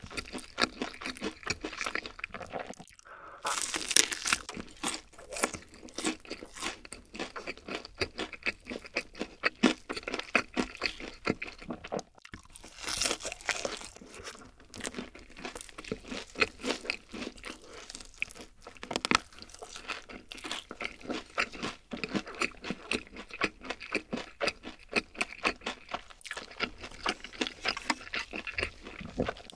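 Close-miked crunching and chewing of Kyochon Honey Combo fried chicken: crisp glazed skin crackling bite after bite, with two brief pauses.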